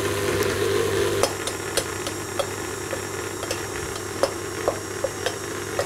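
Electric stand mixer running steadily as it beats the margarine and icing-sugar butter cream. Light, irregular clicks of a spoon stirring in a small metal saucepan sound over the hum.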